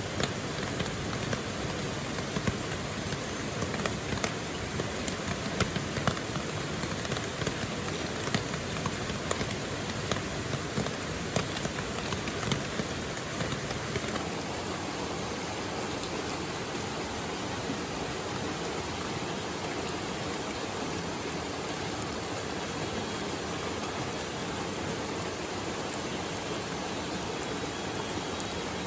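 Steady rain, an even wash of noise with many sharp individual drop hits through the first half. About halfway through the drop hits mostly stop and the rain settles into a smoother, even sound.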